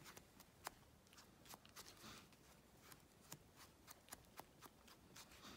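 Near silence, with faint scattered ticks and light rubbing as holographic chrome powder is rubbed onto a cured gel nail tip.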